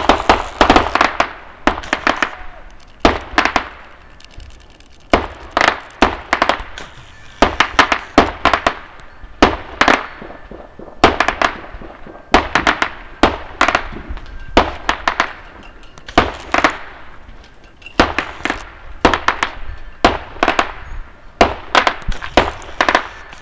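Fireworks going off: rapid, loud, sharp bangs and crackles in volleys, with short gaps of a second or so between clusters.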